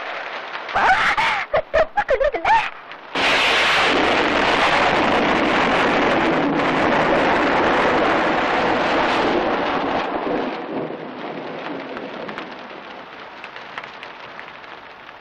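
A few short vocal cries, then a sudden loud crash of thunder with heavy rain about three seconds in. It holds for several seconds and fades after about ten seconds into a steadier, quieter hiss of rain.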